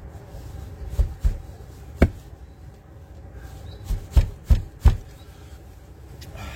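A series of short, sharp knocks: two about a second in, a single one a second later, then four in quicker succession near the end, over a steady low hum.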